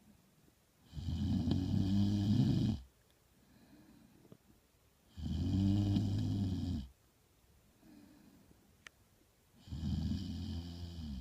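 Cartoon character's snoring done as a voice-over: three long, low snores about four seconds apart, with faint quieter breaths between them.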